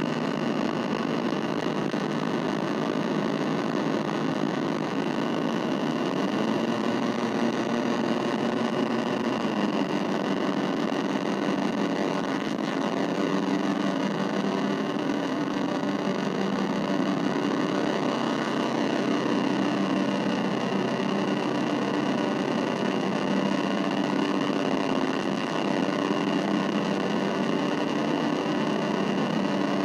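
Casper Electronics Nova Drone analog synthesizer holding a steady, dense, distorted drone of layered sustained tones, with faint pitch sweeps passing through partway in.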